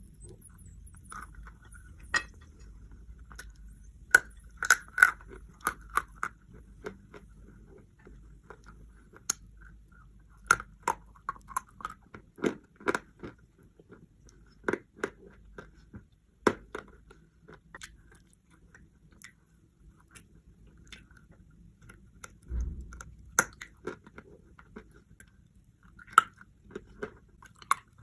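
Chalk being bitten and chewed: sharp crunches and cracks at irregular intervals, sometimes several in quick succession, over a faint low hum.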